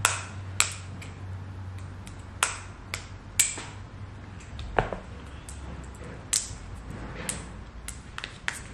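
Sharp, irregular clicks and taps of scissor tips and fingers against the lid of a small metal tin as it is pried at to get it open, about nine clicks in all.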